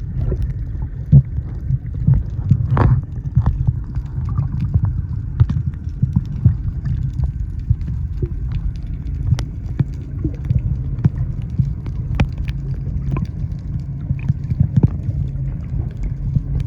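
Steady low rumble with scattered knocks and clicks, aboard a boat lying at anchor.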